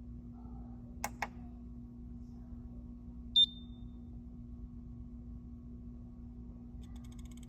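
A steady low hum with two sharp clicks about a second in and a short high-pitched beep a couple of seconds later, the loudest sound. Near the end an LG 32GQ950-B monitor starts its fault noise, a fast run of high ticks.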